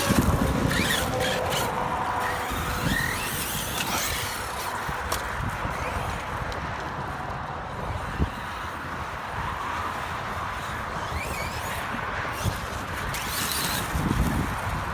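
Radio-controlled truck driving over dirt: electric motor whine with tyre and gravel noise, and a sharp knock about eight seconds in.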